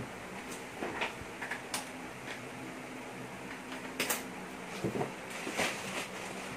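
Karavision KP9800 karaoke DVD player starting up. Its disc drive makes a series of short clicks and mechanical whirs as it closes and loads, over a steady low hum.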